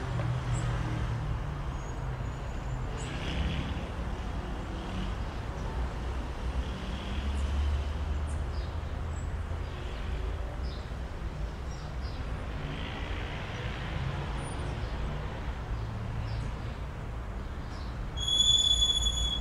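Steady low rumble of city traffic, with a few faint ticks. Near the end a short, high, steady whistling tone lasts about a second.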